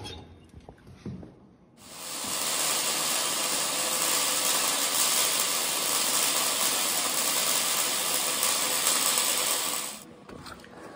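Electric arc welding on a steel deck frame: a steady hiss that starts about two seconds in and cuts off about a second before the end.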